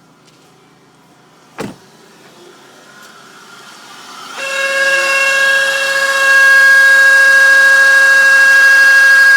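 A single click about one and a half seconds in, then a loud, steady high-pitched whine starts about four and a half seconds in, swells over a second or so and holds: a 2001 Chevrolet Impala's radiator cooling fan running on a worn bearing.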